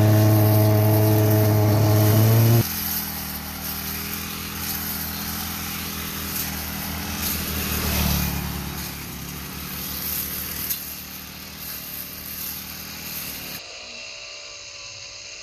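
Honda GX35 four-stroke brush cutter engine running at high revs, then dropping abruptly to quieter, lower running just under three seconds in.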